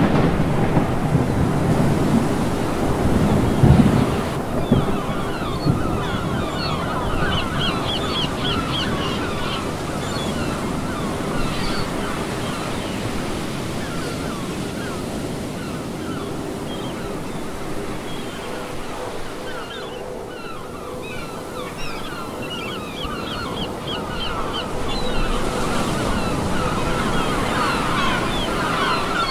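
Surf breaking and washing over a shingle beach, with wind. A dense chatter of short high calls runs over it from about five seconds in, thinning out for a few seconds past the middle.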